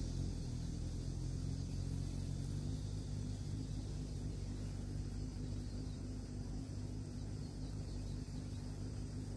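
A steady low mechanical hum, several held low tones together, that comes in abruptly at the start and runs on evenly.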